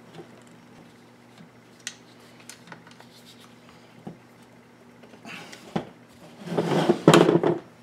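Hands handling chainsaw parts and tools on a workbench: light scattered clicks and taps of plastic and metal, then a louder scraping clatter about five and a half to seven and a half seconds in.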